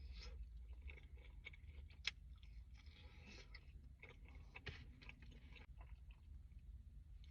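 Close-miked chewing of food: soft wet crunches and mouth clicks in an irregular run, with one sharp click about two seconds in. A steady low rumble sits underneath.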